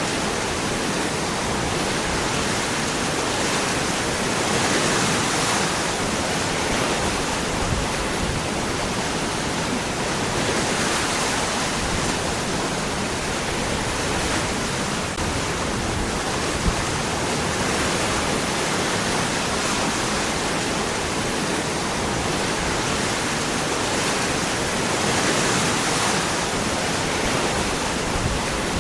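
Waterfall: water falling and rushing over rocks in a steady, dense roar, swelling slightly now and then.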